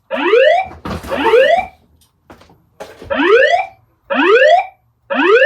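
Fire alarm voice-evacuation whoop tone from a Notifier DVC system over the alarm speakers: five short rising sweeps, two then a pause then three, between repeats of the evacuation message. A brief hiss overlaps the second sweep.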